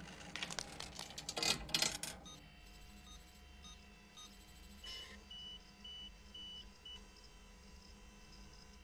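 Faint clicks and rattles of cable rigging for about two seconds. Then a computer beeps as a file downloads: short blips at shifting pitches, then five short high beeps at an even pace.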